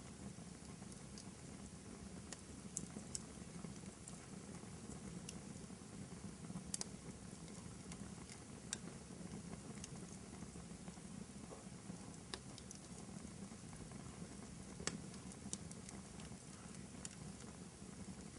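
Wood fire burning in a fireplace: a steady low rumble of flames with scattered sharp crackles and pops, a few of them louder.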